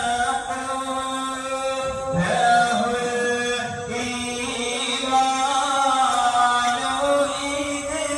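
Chanted Islamic devotional song in long held notes over a steady low drone.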